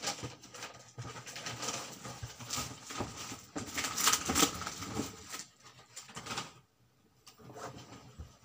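Plastic wrapping and paper gift bags rustling and crinkling as they are handled, in an irregular run of crackles with a brief lull about two-thirds of the way through.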